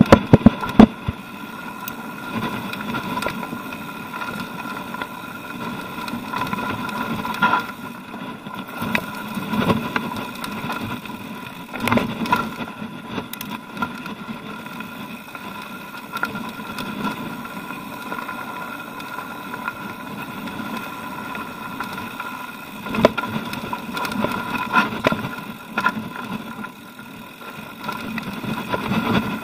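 Mountain bike ridden over a rocky, loose-gravel singletrack: tyres crunching on stones and the bike rattling, over a steady hum. Sharp knocks from hitting rocks come in a loud cluster at the start and a few more times during the ride.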